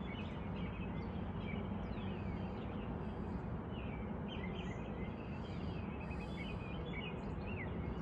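Steady outdoor background rumble with small birds chirping over it: many short high chirps and quick falling whistles, scattered and irregular. No thunder is heard.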